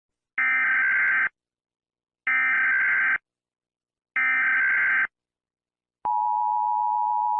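Emergency Alert System header: three short bursts of screechy digital data tones about two seconds apart, then a steady attention tone begins about six seconds in, marking the start of a new emergency alert.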